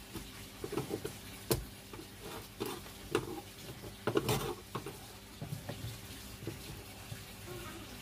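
A cutter blade scraping and picking at an old, cracked glue patch on the plastic bottom of a washing-machine tub: irregular short scrapes and clicks, the loudest about four seconds in, over a faint steady hum.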